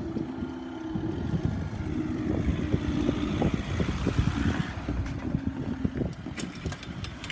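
Grand Central Class 180 diesel multiple unit passing over the level crossing: a steady diesel engine hum under dense, irregular wheel clatter on the rails, with a few sharp clicks near the end.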